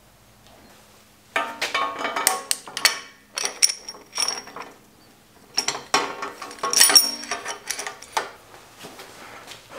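Metal headset press and headset cups clinking and rattling as the press rod is slid through a bicycle head tube and the cups are fitted on it. The clatter comes in three spells of knocks with a short metallic ring.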